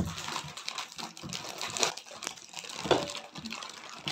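Plastic snack packets of cheese balls crinkling and rustling as they are handled and torn, with a few sharp knocks of juice cartons being set down on a table, the loudest at the start and about three seconds in.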